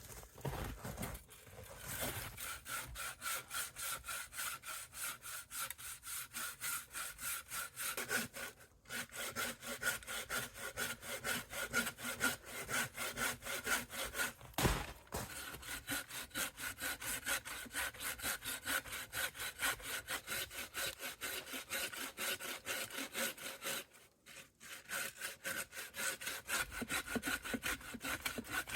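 A handsaw cutting through a fallen tree trunk in steady back-and-forth strokes, about two a second, with a ringing note from the blade. It pauses briefly about 9 seconds in and again near 24 seconds, then resumes.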